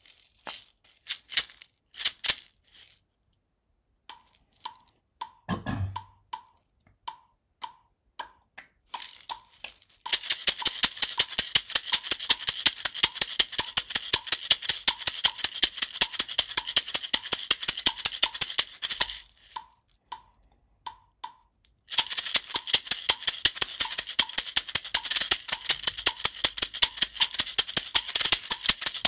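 A pair of Meinl MSM2 mini maracas being shaken. First come a few single shakes, then about ten seconds in a long run of fast, even shaking, a break of a couple of seconds, and a second run that carries on. A faint tick keeps time about twice a second through the first two thirds.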